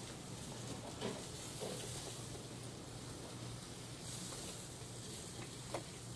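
Food sizzling steadily on a grill, with a couple of light clicks.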